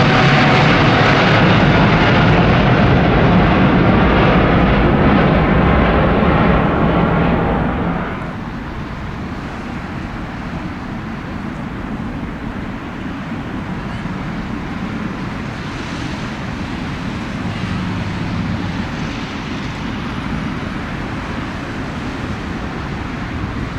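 Airbus A350 jet airliner's Rolls-Royce Trent XWB engines, loud and close, a rushing roar with a steady whine. About eight seconds in, the sound drops suddenly to a quieter, even rumble of jet noise.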